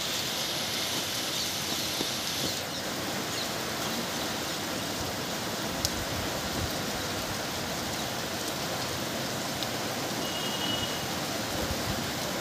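Heavy rain falling steadily on roofs and a flooded street, an even hiss, with one sharp click about six seconds in.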